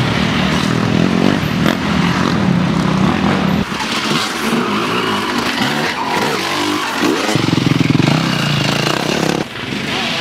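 Enduro dirt-bike engines revving hard as riders pass on a forest track, the engine note rising and falling with the throttle. The sound changes abruptly a few times.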